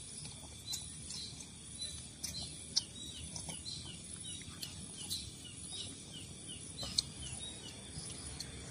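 Outdoor ambience: a steady high-pitched insect drone with rapid, short falling chirps of birds or insects over it. Two sharp clicks stand out, about three seconds in and again near seven seconds.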